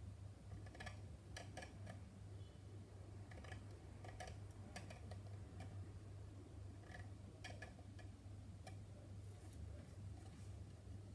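Faint, irregular small clicks of hand tools working a plastic scale-model car body, over a steady low hum.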